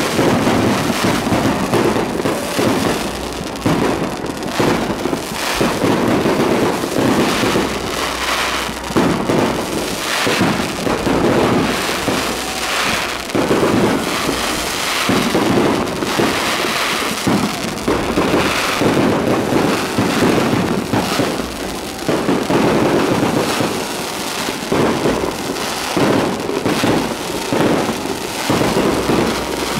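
Fireworks display going off overhead: a dense, unbroken barrage of bangs and crackles from aerial shells bursting one after another, with no pause.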